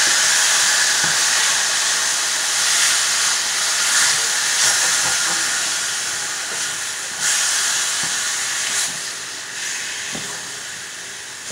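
Raw ground turkey and turkey sausage sizzling in a hot frying pan while a spatula breaks the meat up, with a few short scrapes of the spatula. The sizzle is loudest at first and fades steadily.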